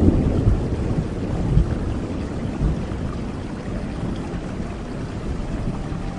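A low rumble of thunder fading away over steady, even rain.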